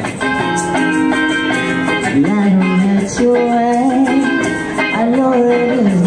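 Live duo performance: a guitar playing chords, joined about two seconds in by a woman singing long, wavering held notes into a microphone.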